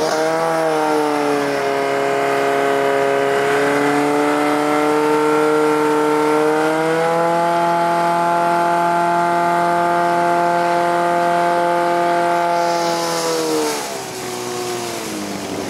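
Portable fire pump's petrol engine running flat out, pumping water through the hose lines: a steady high engine note that steps up in pitch about seven seconds in, then falls and quietens near the end.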